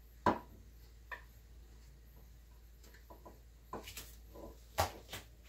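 Irregular sharp clicks and light knocks of kitchen prep work, about seven in all, the loudest about a quarter second in and another near the end.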